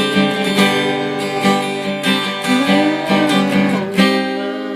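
Acoustic guitar strumming chords, with a gliding melody line played over it about halfway through; an instrumental passage of a gospel song, without singing.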